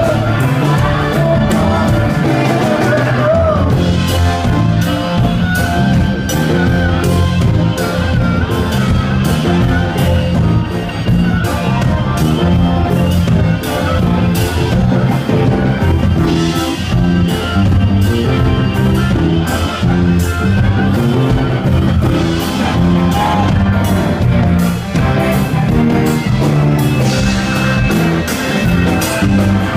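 Live pop-rock band playing loudly: keyboard, acoustic and electric guitars and drums keeping a steady beat, with a man singing.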